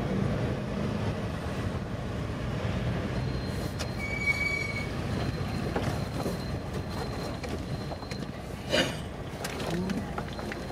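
Street traffic heard from a moving vehicle: a steady rumble of engines and tyres as a lorry passes close. A brief high tone sounds about four seconds in, and there is a short loud burst near the end.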